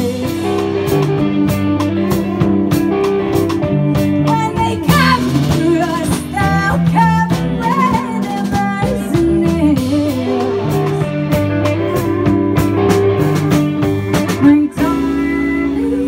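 A live band playing through PA speakers: guitars, drum kit and singing. A little before the end there is a sharp accent and a brief drop in level, after which the playing thins out.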